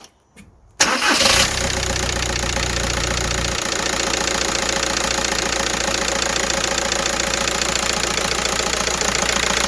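VW Caddy van's 1.9 TDI four-cylinder diesel engine cranking and catching almost at once, about a second in, then settling into a steady diesel idle, its low rumble easing a few seconds later. The quick start comes on freshly fitted glow plugs, the cure for the van's hard starting.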